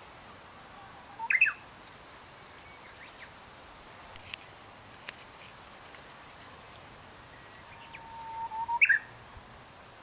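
Japanese bush warbler (uguisu) singing twice over a faint steady hiss: a short phrase about a second in, then near the end its full song, a long held whistle that rises slightly into a quick higher flourish. A few short clicks sound between the two songs.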